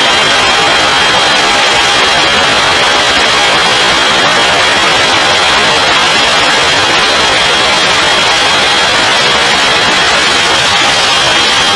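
Steady wind rush buffeting the onboard camera of a BMW S1000RR sportbike at speed, with a steady high-pitched whine running through it.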